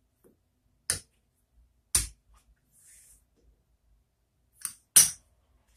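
Poker chips clicking as a stack is picked up and set down on the table: four sharp clicks, the loudest near the end.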